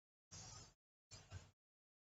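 Near silence, with two faint, brief patches of low noise.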